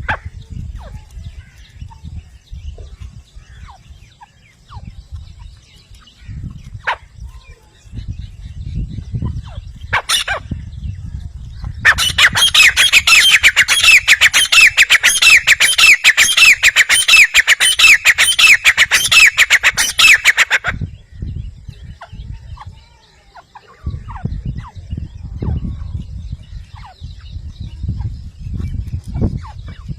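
Grey francolin calling: a loud, rapid run of repeated shrill notes lasting about eight seconds, starting about twelve seconds in. Before and after it there are only a few faint scattered calls over a low rumble.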